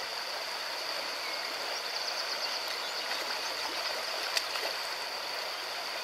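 Shallow river rapids rushing steadily over rocks, with one short sharp click about four and a half seconds in.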